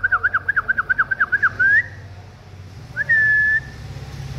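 A person whistling to rouse puppies: a quick run of short whistled notes, about eight a second, ending in an upward slide, then about three seconds in a single held whistle lasting around half a second.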